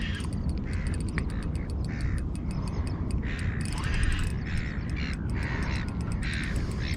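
A crow cawing over and over, two or three calls a second, over a steady low rumble.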